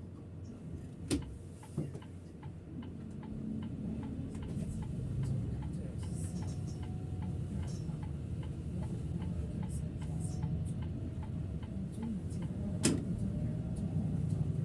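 Turn-signal indicator ticking about twice a second in the cab of a Setra S 531 DT double-decker bus, over the low rumble of the bus that grows louder about four seconds in. A few sharp clacks break through, one about a second in and a louder one near the end.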